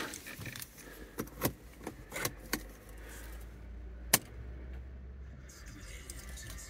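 Car keys jingling and clicking, with a few sharp knocks of car fittings being handled, over a low steady hum that sets in about three seconds in.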